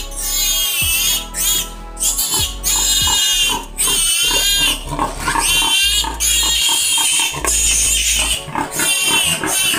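A piglet squealing loudly in a string of long, high cries, each about a second, while it is held up and given an injection.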